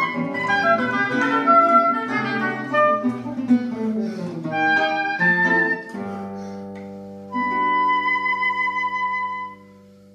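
Classical guitar and woodwind duo playing a pasillo: a quick run of melody over guitar accompaniment, then about six seconds in the guitar strikes a final chord that rings on. A long high woodwind note enters over the chord and stops shortly before the guitar dies away.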